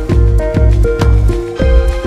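Electronic background music with a steady beat: deep bass pulses and sharp percussion strokes about twice a second, under held synth notes.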